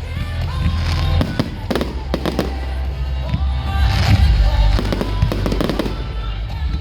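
Fireworks going off in a rapid run of bangs and crackles, several a second, over loud music with a heavy bass.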